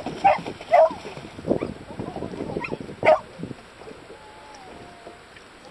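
A dog giving a few short, high yipping barks: two close together near the start and one more about three seconds in.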